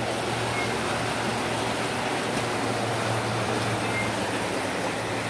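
Floodwater rushing and churning along a flooded street: a steady, even wash of water noise.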